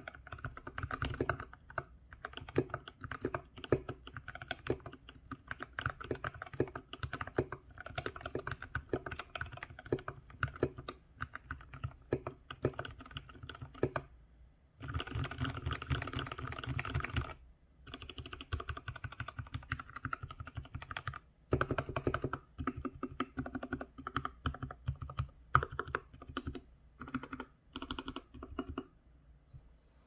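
Typing on an Anne Pro 2 60% mechanical keyboard with Durock T1 tactile switches, lubed with Krytox 205g0 and filmed, under SA-profile keycaps: a steady stream of keystrokes. There is a denser flurry about halfway through, brief pauses just before and after it, and the typing stops just before the end.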